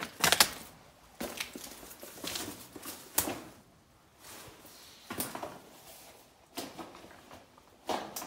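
Slow footsteps on the wet, rocky floor of a flooded mine tunnel, about one step a second with a pause about halfway; the loudest is right at the start.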